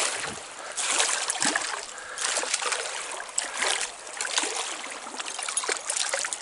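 Water of a small trout stream running, with irregular splashing swells and flicks throughout.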